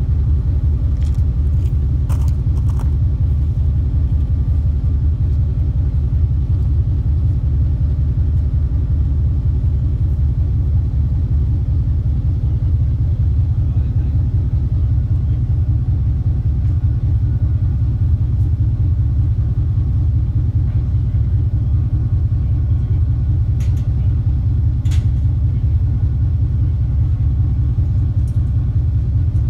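A vehicle driving: a steady low road rumble throughout, with a few faint clicks about two seconds in and again near the end.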